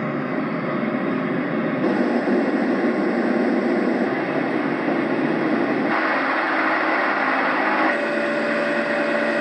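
Roffie white noise machine playing its recorded fan sounds through its small built-in speaker: a steady whirring noise that switches abruptly to a different fan track about two seconds in, again about six seconds in, and again about eight seconds in, the last one with a steady hum in it.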